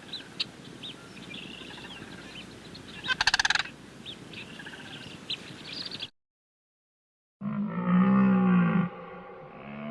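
Bird calls: scattered small chirps and one fast chattering call about three seconds in. After a break in the sound, a lion roaring: one long call, then the start of a second near the end.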